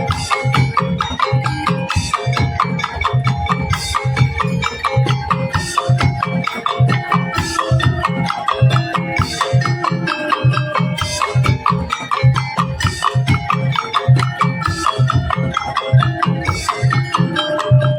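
Tongtek ensemble playing: bamboo kentongan and other struck percussion in a fast, dense rhythm over a pitched low drum beat, with ringing pitched notes woven through.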